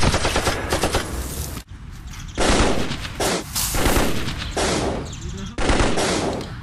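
Gunfire sound effects: a rapid run of automatic fire for about a second and a half, then several separate bursts of shots that start abruptly.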